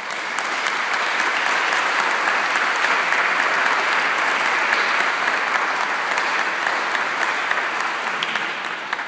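Audience applause: many hands clapping in a dense, steady patter that tails off near the end.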